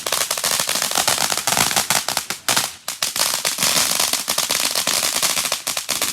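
Consumer ground firework going off with rapid, dense crackling pops, nearly continuous, with a short lull about two and a half seconds in.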